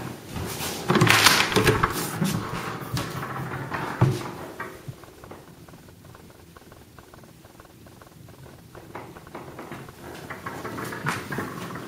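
Rustling, scuffing and clicking handling noise from a handheld phone carried through a doorway, loudest in the first few seconds, with one sharp knock about four seconds in. It is quieter in the middle and picks up again near the end.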